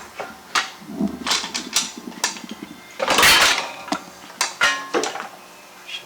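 Metal clanks and knocks from tools and car parts being handled, about eight separate hits, with one louder, longer clattering burst about three seconds in.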